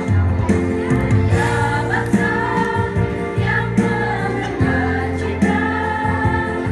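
A women's choir singing with instrumental backing that holds sustained bass notes.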